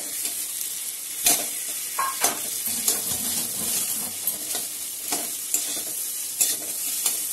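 Boiled, mashed potato frying in hot oil in a metal kadai, sizzling steadily while a metal spatula stirs and scrapes through it, with repeated sharp knocks of the spatula against the pan.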